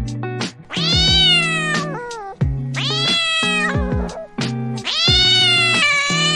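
A cat meowing three times in long, drawn-out meows, the last one longest, over background music with a steady beat.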